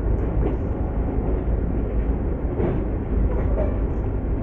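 Steady low rumbling noise with no clear rhythm or single event.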